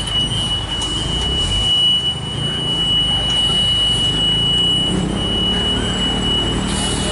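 Large diesel cargo truck's engine running slowly under load as the truck creeps around a steep hairpin, with a steady high-pitched whine throughout.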